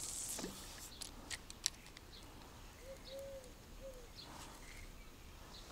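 A bird cooing once: three low notes, the middle one the longest, about three seconds in. A few sharp clicks come a second or so before it.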